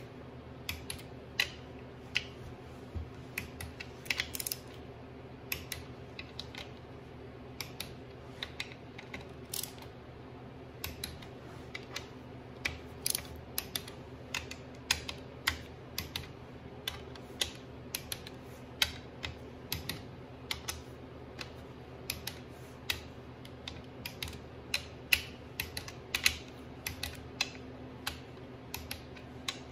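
Torque wrench ratcheting and clicking on the valve body bolts of a Mopar 904 automatic transmission as they are brought up to 100 inch-pounds: sharp, irregularly spaced clicks, about one or two a second, over a steady low hum.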